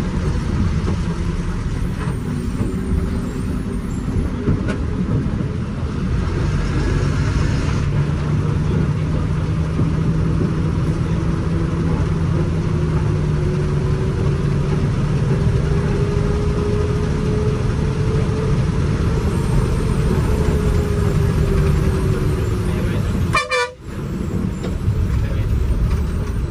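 KSRTC Sarige bus's diesel engine running under load on a steep hairpin road, heard from inside the bus, with a steady heavy rumble and a pitch that climbs slowly for several seconds past the middle. The horn sounds, and the sound drops out briefly near the end.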